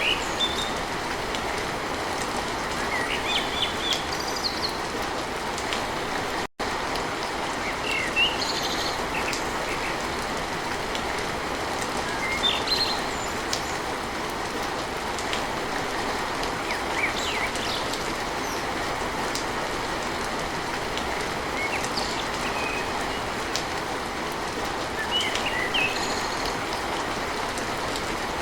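Steady rain on a tin roof, with birds chirping now and then. The sound drops out for an instant about six and a half seconds in.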